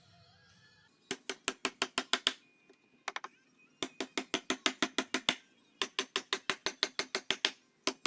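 Rapid sharp taps, about seven a second, in runs of one to two seconds with short pauses between them.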